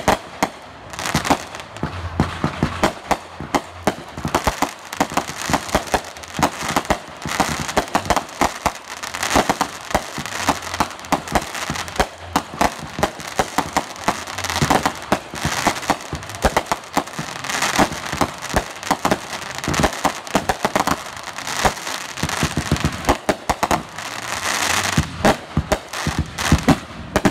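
Aerial fireworks bursting in rapid succession: a dense, continuous run of bangs and crackles with no pause.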